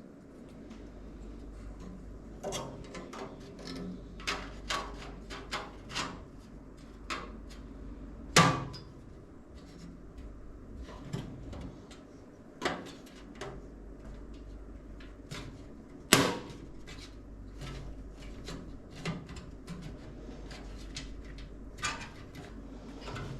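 Scattered clicks, taps and knocks from computer parts being handled and fitted during a PC build, with two louder knocks, one about eight seconds in and one about sixteen seconds in.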